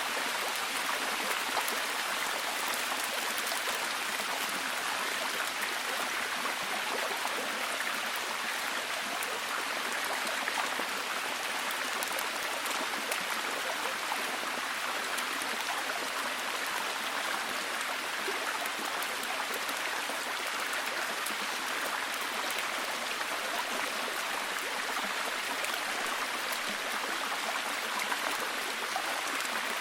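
Steady, solid rain: an even hiss of falling water, dotted with many small drop ticks.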